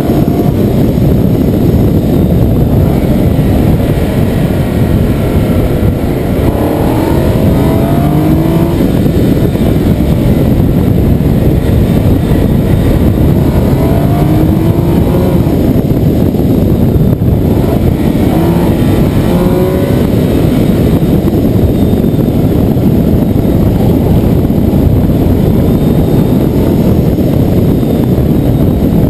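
Nissan 370Z's 3.7-litre V6 running under acceleration, its pitch climbing a few times, over a loud steady rush of road and wind noise.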